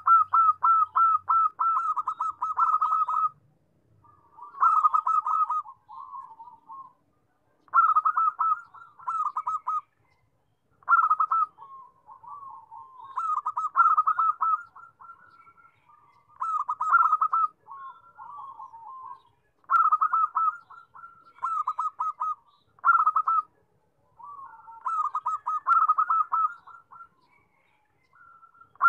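Zebra dove (perkutut) singing: repeated phrases of rapid, stuttering coos, a new phrase about every three seconds, each about two seconds long and trailing off into softer notes.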